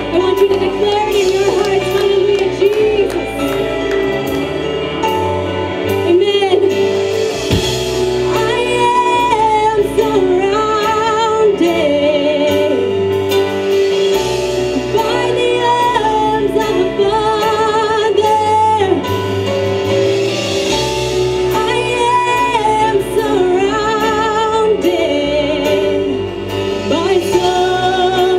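Women singing a Christian praise and worship song into microphones, with acoustic guitar and instrumental backing.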